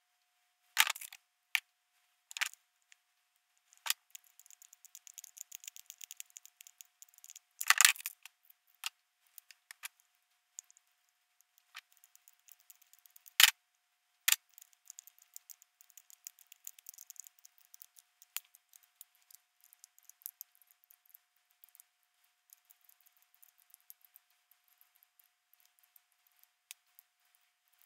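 Metal turbocharger parts and hand tools handled on a workbench: sharp clinks of metal set down or knocked together, with two spells of fast, light ticking.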